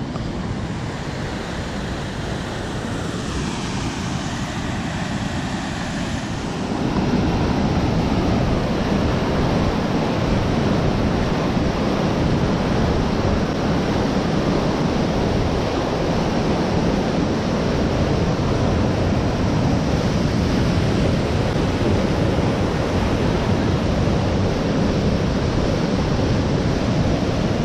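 Steady rushing of water in a dam's outlet channel, louder from about six seconds in, with wind on the microphone.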